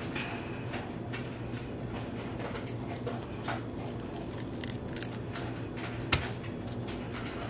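Light clicks and taps of a cured resin coaster and its plastic mold insert being handled and the insert peeled off, with a sharper click about six seconds in. A low steady hum runs underneath.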